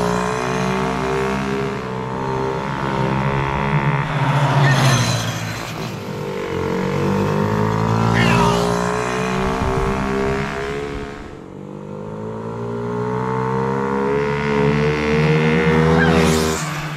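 ATV engine running and revving as the quad rides back and forth, its pitch climbing and dropping with the throttle. It swells louder several times as it passes close.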